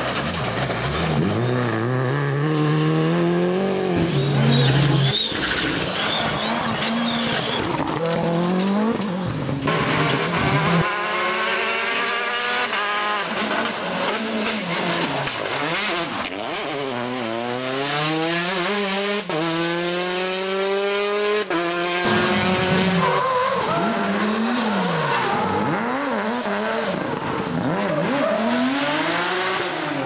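Rally cars driven hard, one after another: engines revving up and dropping back through gear changes, with tyre squeal. The sound changes abruptly several times as one car gives way to the next.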